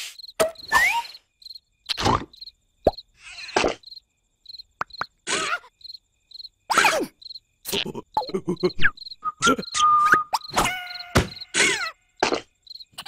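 Cartoon soundtrack of a cricket chirping steadily, about twice a second, broken by short cartoon sound effects and squeaky gliding noises. Around ten seconds in, a held whistle-like note sounds.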